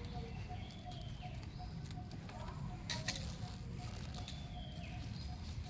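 An animal call of short notes at one pitch, repeating evenly about four times a second, with faint high chirps over it. A brief scratchy clatter comes about three seconds in.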